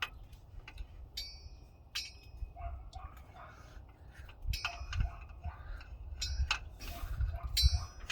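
Hand tools and metal engine parts clinking and knocking as parts are worked loose, with several short ringing metallic pings scattered through.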